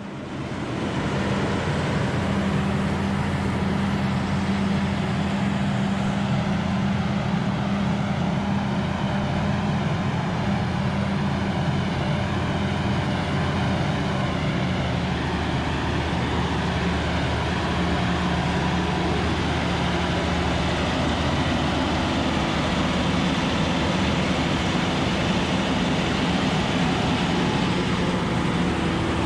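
Versatile Delta Track tractor's diesel engine running steadily for the whole stretch, its note shifting slightly about halfway through.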